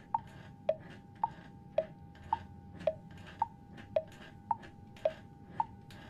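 Clock ticking: an even tick-tock, alternating higher and lower clicks about twice a second, over a faint hiss.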